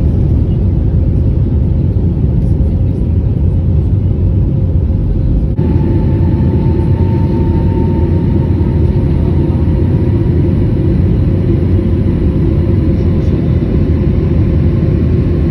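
Loud, steady low rumble of a vehicle in motion. About five and a half seconds in, the sound changes abruptly and a steady hum joins the rumble.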